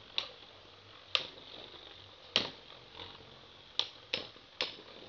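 Two Beyblade spinning tops clashing in a plastic stadium: six sharp clacks of their metal wheels striking each other, at irregular intervals.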